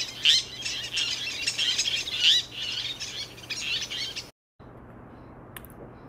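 Tern calling: many high calls crowding over one another, with two louder ones near the start and about two seconds in. The calling cuts off abruptly about four seconds in, leaving a faint hiss.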